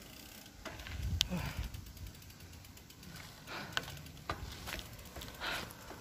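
Giant Talon 2 mountain bike clicking and rattling as it is ridden: irregular sharp ticks and short rattles, over a low rumble that swells about a second in.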